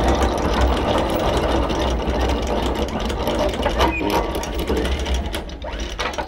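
Electric anchor windlass hauling in the anchor chain: the motor runs with a steady rattle of rapid clicks as the chain comes up, dying down near the end.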